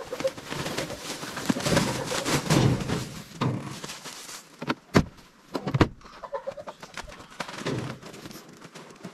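Rustling and crackling of a white sack and dry bread loaves being handled and shifted, with two sharp knocks about five and six seconds in.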